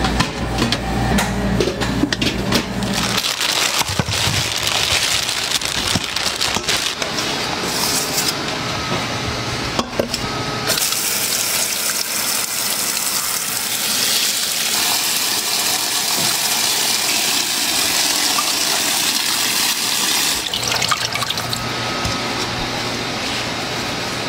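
Kitchen tap running, the stream splashing onto lemons in a stainless steel colander in the sink: a steady hiss of water, strongest through the middle of the stretch.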